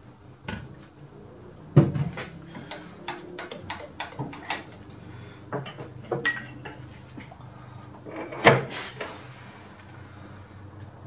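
Knocks, clicks and clatter of steel tooling being handled at a stopped metal lathe, with two louder metal clunks about two seconds in and again about eight and a half seconds in, as the tailstock centre is brought up to the work.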